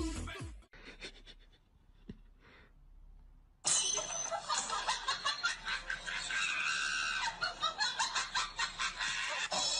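Music fades out in the first second and a few faint clicks follow. Then, from about four seconds in, a person laughs in rapid bursts.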